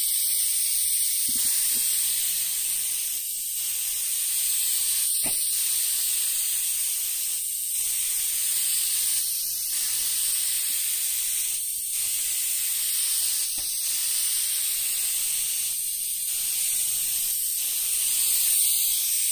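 Compressed air hissing from a small gravity-feed Central Pneumatic detail spray gun as it sprays finish, a steady hiss with brief dips about every four seconds.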